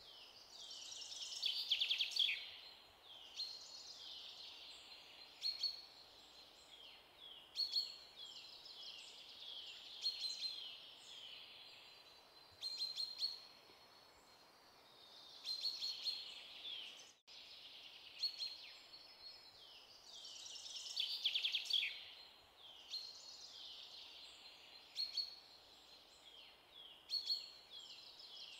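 Songbirds chirping and twittering in quick high-pitched calls, with rising and falling sweeps; the same sequence of calls repeats after a brief dropout about two-thirds of the way through, as in a looped birdsong track.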